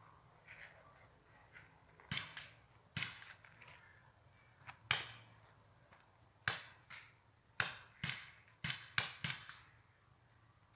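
Paintball markers firing: about ten sharp pops at irregular intervals, coming quicker in the second half.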